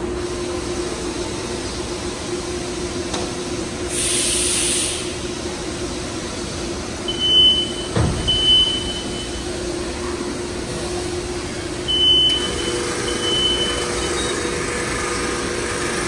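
Steady mechanical hum of a packaging machine on a plant floor, with a short burst of hiss about four seconds in. Two pairs of short, high, steady tones sound around seven and twelve seconds in, and a single knock comes about eight seconds in.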